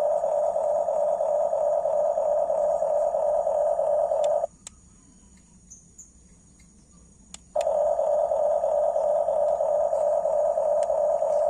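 Electric drive motors and gearboxes of a Huina 1569 RC bulldozer whining steadily. The whine cuts off suddenly about four and a half seconds in and starts again some three seconds later.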